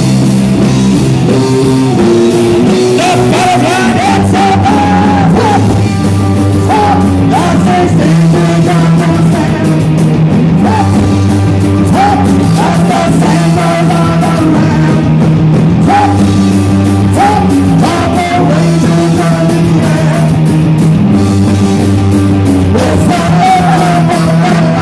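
Live rock band playing a song: electric guitars, bass guitar and drums, with a man singing lead.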